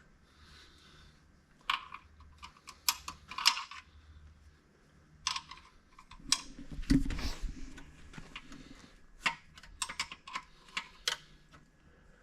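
Hand tools clicking and clinking against metal tractor parts in short clusters as a fitting is backed off, with one heavier clunk about seven seconds in.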